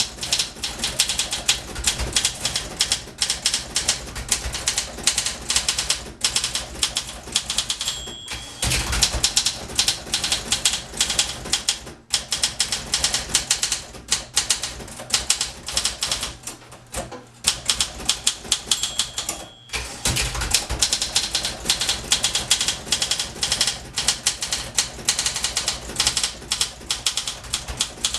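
Rapid typing on a 1961 Olympia SM 4 portable typewriter: a fast, uneven stream of key and typebar strikes. The margin bell rings twice, about 8 s and 18 s in, each time followed about a second later by a carriage return before the typing resumes.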